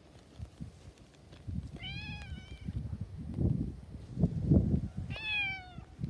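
A ginger cat meows twice, short calls about two seconds and five seconds in, each falling slightly in pitch at the end. Between them comes low rumbling from wind on the microphone.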